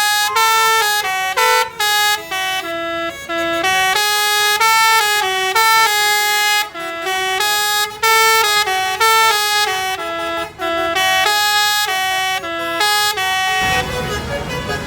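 Basuri "telolet" multi-tone bus air horn playing a fast melody of held notes that step up and down in pitch. Near the end the melody stops, leaving the bus's engine running.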